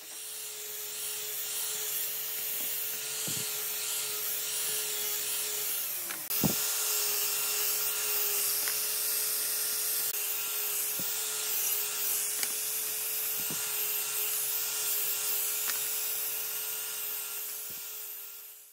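Angle grinder fitted with a sanding disc running with a steady whine, its abrasive rasping against the end of a thin pine strip. The sound dips briefly with a click about a third of the way in, then carries on.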